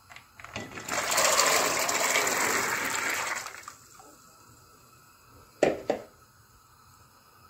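Barbunya beans poured from a bowl into a metal pot of water: a loud rushing splash lasting about three seconds. A couple of seconds later, two quick sharp knocks a quarter of a second apart.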